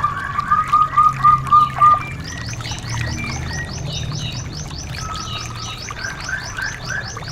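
Songbirds, in the style of a white-eye (pleci) song track. First comes a run of about seven loud, even whistled notes. From about two seconds in, a fast chatter of thin, high, falling notes follows at about five a second, under a steady low hum.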